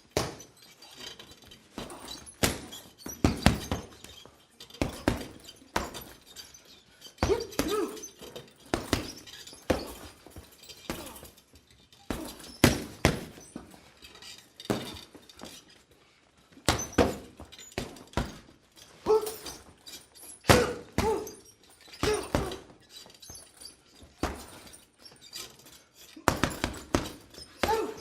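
A run of punch sound effects: sharp hits to the face, one every second or two, some coming in quick pairs or clusters.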